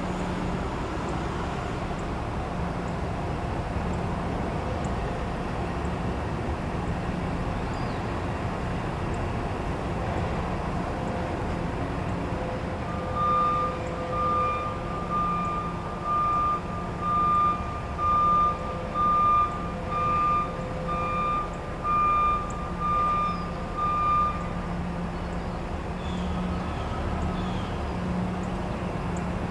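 A truck's reversing alarm beeps about a dozen times at one steady pitch, roughly once a second, starting near the middle and stopping a few seconds before the end. Under it runs the steady low hum of the running engine and background traffic noise.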